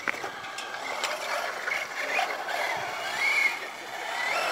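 Traxxas Slash RC truck whining as it drives, the pitch rising and falling with the throttle, with a few sharp clicks.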